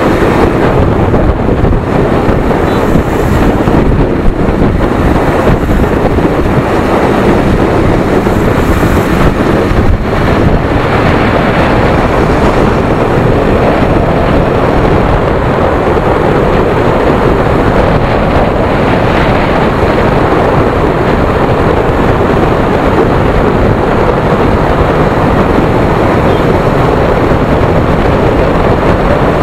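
Steady wind rush on the microphone of a KTM Duke 250 motorcycle being ridden at road speed, with the bike's single-cylinder engine and tyre noise running underneath.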